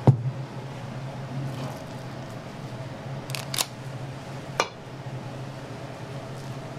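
Several sharp clicks or knocks of hard objects: a loud one at the very start, two close together about three and a half seconds in, and another a second later. Under them runs a steady low hum.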